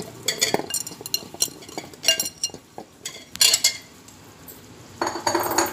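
Chunks of raw potato being tipped into a steel pressure cooker of browned minced meat: a run of sharp metal clinks and clatter as they strike the pot and the steel spoon, with a short scraping rustle near the end.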